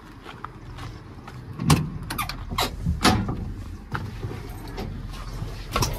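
Truck cab door being opened and a person climbing into the cab: a cluster of clunks and clicks about two to three seconds in, and another sharp click near the end, over a low steady rumble.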